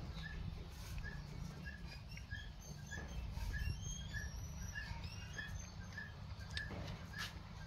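Steady low rumble of an electric fan blowing close by, with a short high chirp repeating about twice a second and other bird chirps scattered over it.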